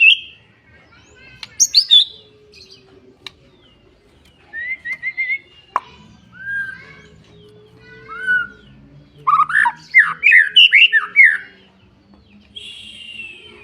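Songbird singing a varied song of separate phrases: sharp high notes, a quick run of chips, slurred whistles, then a loud fast series of down-sweeping notes and a buzzy trill near the end.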